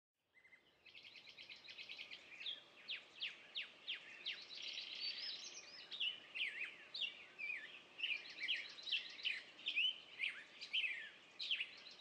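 Songbirds singing: a dense run of chirps, trills and quick down-sweeping whistles, starting about a second in and growing louder over the next couple of seconds.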